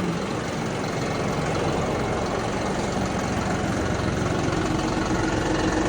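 John Deere 5075E tractor's diesel engine idling steadily just after starting normally on a newly installed battery.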